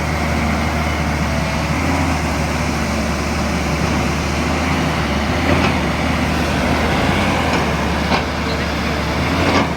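JCB 205 excavator's diesel engine running steadily, with a few brief knocks in the second half.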